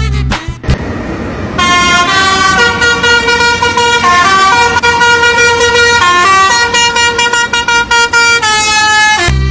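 A vehicle horn playing a tune of held notes that step up and down in pitch, over a steady noisy engine rumble. The horn starts about a second and a half in, after a short burst of noise.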